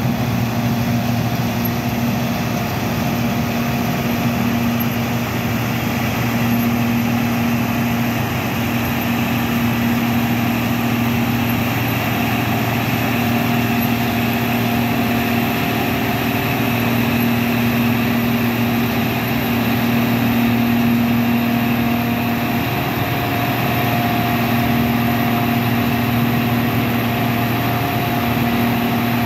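John Deere 6620 combine running steadily while harvesting wheat: its diesel engine and threshing machinery give a constant drone with a steady hum. It grows a little louder partway through as the combine comes close.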